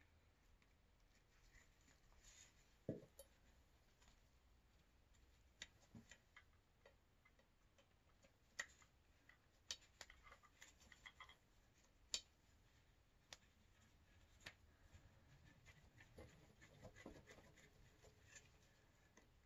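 Mostly quiet handling of a Kinder Shuttle pulk sled's plastic pull arm and nylon straps: faint, scattered clicks and taps, with a somewhat busier stretch of handling noise near the end.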